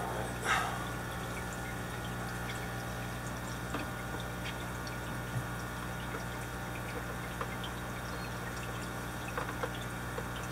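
Steady running of aquarium equipment: a low electrical hum under an even water trickle. A few faint clicks throughout and a brief swish about half a second in.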